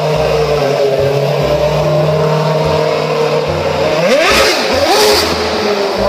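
Toy F1 race car's electronic engine sound effect: a steady engine drone, then revving up and down in pitch about four seconds in.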